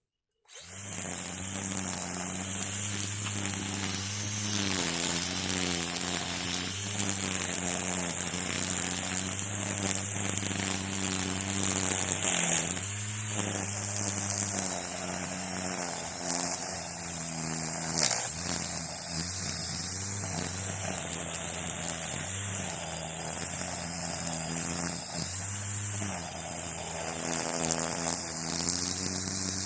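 String trimmer running at speed, its pitch dipping and recovering several times as it cuts. It starts abruptly about half a second in.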